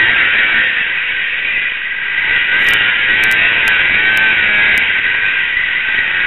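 Racing snowmobile engine heard through a helmet camera's microphone under a heavy rush of noise, its pitch wavering up and down with the throttle.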